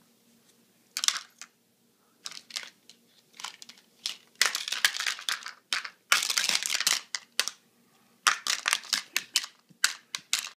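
Crinkling and rustling in irregular bursts, some short and some lasting about a second.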